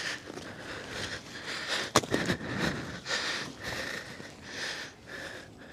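A person breathing hard and sniffing close to the microphone in short, regular puffs, with one sharp knock about two seconds in.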